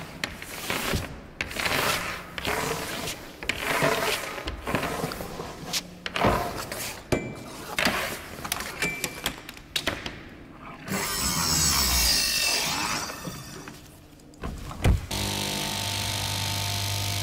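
Workshop noise: irregular knocks, rubs and handling sounds, with a stretch of hiss partway through. After a sharp knock about fifteen seconds in, a machine's steady hum takes over.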